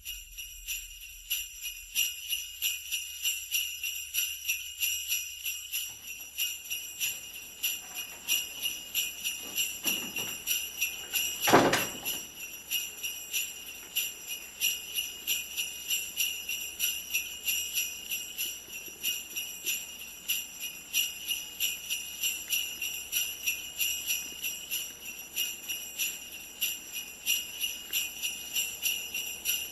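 Sleigh bells jingling in a steady, even rhythm, about two to three shakes a second, with one louder thump about twelve seconds in.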